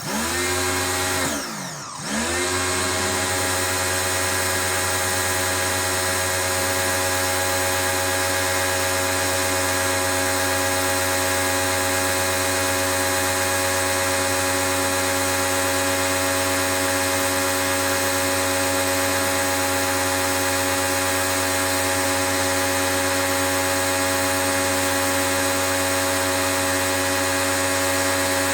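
Pro-Kleen 1600 pressure washer running with a steady motor whine. About two seconds in, its pitch drops sharply and climbs straight back up, then it runs on evenly.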